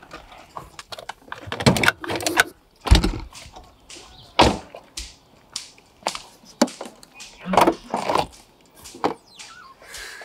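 Handling noises around a BMW M5 E60: a string of separate clunks and knocks from its door and trunk lid, the heaviest a deep thud about three seconds in. Near the end come rustling sounds of rummaging among things in the trunk.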